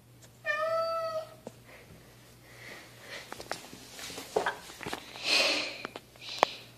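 A domestic tabby-and-white cat meows once, a drawn-out meow lasting nearly a second. After it come scattered soft clicks and a short burst of rustling noise.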